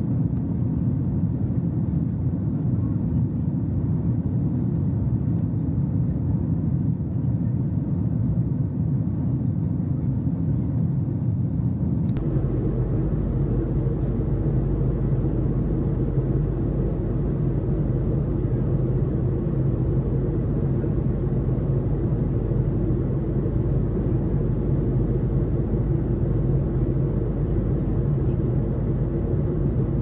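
A steady, low engine-like rumble with a constant hum in it. It changes abruptly about twelve seconds in, becoming fuller and deeper.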